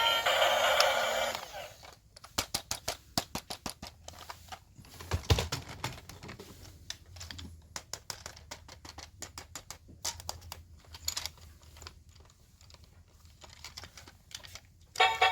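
Music stops after about a second and a half, followed by irregular runs of light, rapid clicks and taps with a dull thump about five seconds in.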